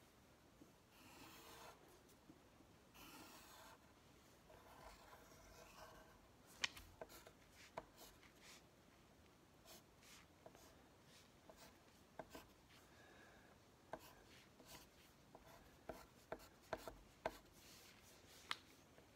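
Pencil drawing on paper on a wooden table, faint: a few longer scratching strokes early on, then a run of short, sharp pencil strokes and ticks as ladder lines are drawn, several louder ones near the end.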